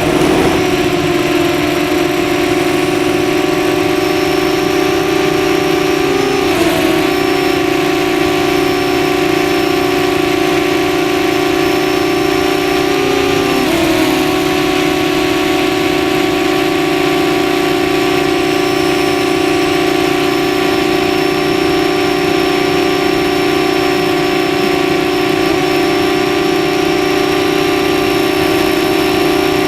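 Quadcopter drone's motors and propellers running in a steady, loud hum, picked up by the drone's own microphone. The pitch dips and wobbles briefly twice, about six and thirteen seconds in, as the motors change speed.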